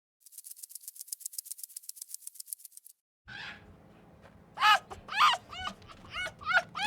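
A fast shaker-like rattle, then, after a short break, an animal calling over and over. From about halfway in, the calls come as short, high, arching cries, roughly two a second, over a low steady hum.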